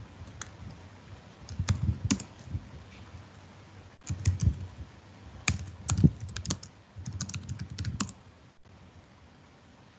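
Computer keyboard typing: a few keystrokes about two seconds in, then a run of quick keystrokes in bursts that stops about eight seconds in.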